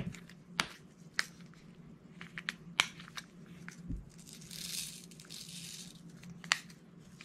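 Diamond painting drill pen picking up and pressing small resin drills onto the canvas: scattered sharp little clicks and taps, a few seconds apart. About four and a half seconds in comes a brief crinkling rustle lasting about a second.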